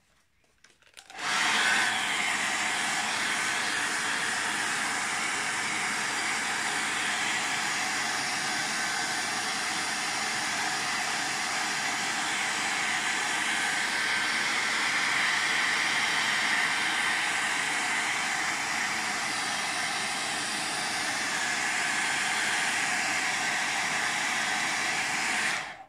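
Handheld hot-air dryer switched on about a second in, blowing steadily with a faint whine over the rush of air to dry wet paint on the journal page, and switched off just before the end.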